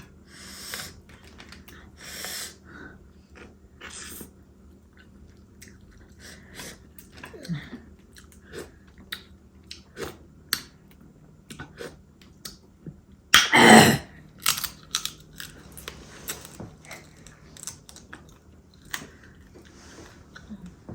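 People chewing and biting into a seafood boil of king crab, with many short, scattered crunches and clicks. One loud, sudden noise about two-thirds of the way through.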